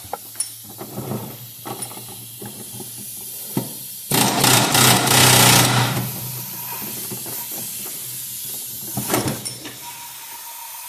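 Tool and handling noise on a T5 manual transmission: light metal clicks, then about four seconds in a loud, harsh burst lasting about two seconds, followed by quieter clicks.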